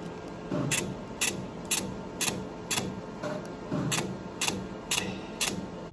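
Laser hair removal handpiece firing pulse after pulse, a sharp click about twice a second.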